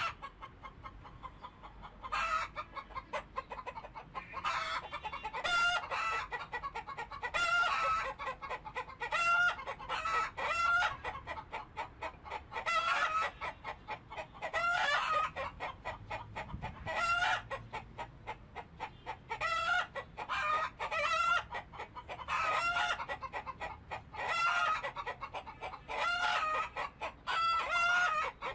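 Domestic chickens clucking, a run of short pulsed calls repeating every second or two.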